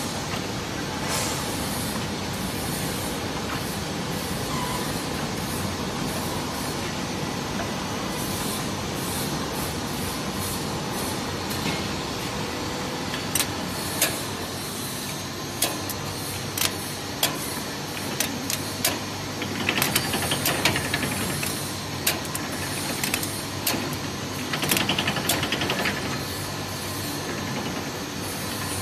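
Rotary bottle rinsing, filling and capping machine running: a steady mechanical hum with scattered sharp clacks, mostly in the second half, and two short hissing spells.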